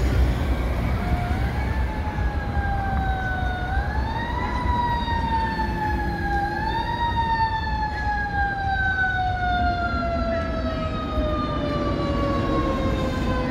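Fire engine siren wailing. Its pitch rises quickly three times in the first seven seconds and falls slowly after each rise, the last fall a long, slow wind-down, over a low rumble of street traffic.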